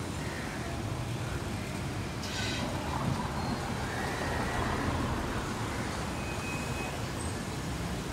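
Slow, queued city traffic: car engines idling and creeping forward in a steady low rumble, with a brief hiss a little over two seconds in.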